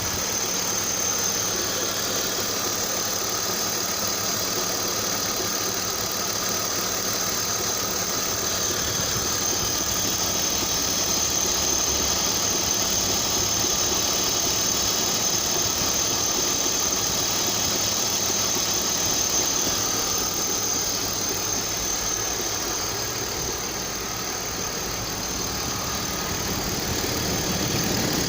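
BMW M52B28TU 2.8-litre straight-six engine running at a steady speed with a dull, rhythmic knocking whose cause is unknown to the owner.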